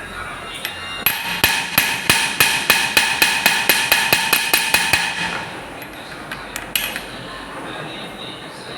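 Small metalworking hammer tapping rapidly on metal in goldsmith's work, about four ringing strikes a second for some four seconds. A couple of lighter knocks follow.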